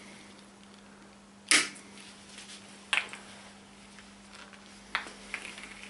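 Cable cutters snipping through a steel brake inner cable: one sharp snap about a second and a half in, followed by a few quieter clicks of the cutters and cable being handled.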